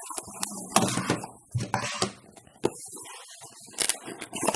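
Small plastic camera accessories and their packaging being handled: rustling, with scattered clicks and knocks and a brief pause about a second and a half in.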